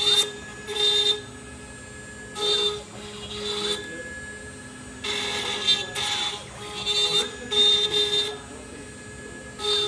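Stepcraft CNC router's spindle milling a wooden inlay, with loud bursts of cutting noise every second or two as the bit bites into the wood. Three times a whine rises in pitch, holds, and falls away again as the machine's axes move.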